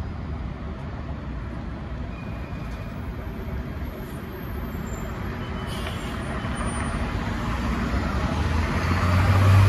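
LA Metro city bus approaching and turning close by, its low engine drone growing steadily louder and loudest near the end, over steady street traffic.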